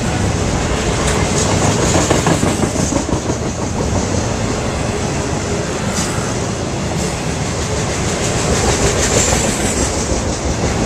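BNSF intermodal freight train of flatcars carrying highway trailers rolling past: steady, loud noise of steel wheels running on the rails, with a few sharper clicks.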